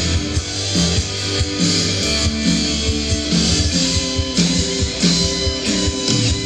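A rock band playing: guitar chords over a steady bass line, with drum kit hits.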